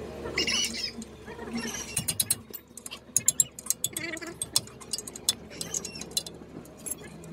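Hand tools working on metal at a 4x4's wheel hub, with a run of sharp metallic clicks and clinks from about two seconds in, like a ratchet wrench or tools knocking on the hub. A few high squeaks come near the start.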